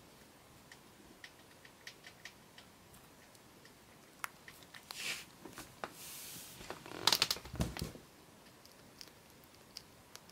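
Degu nibbling a treat, with faint scattered clicks of chewing. About seven seconds in comes a louder quick cluster of knocks and rustling close to the microphone.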